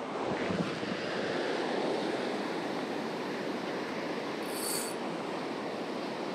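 Surf breaking and washing up the beach, a steady rush of noise. A brief high-pitched squeak comes about four and a half seconds in.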